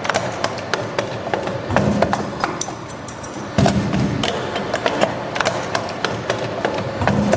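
Hydraulic steel-wire strapping-buckle making machine running: a quick, irregular series of sharp clicks and knocks, with a low drone that swells a few times.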